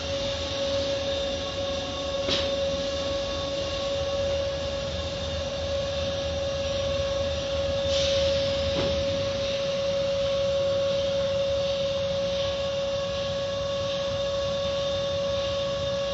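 Steady machine hum from car wash equipment, one unchanging pitched tone over a rushing noise, with a few brief knocks.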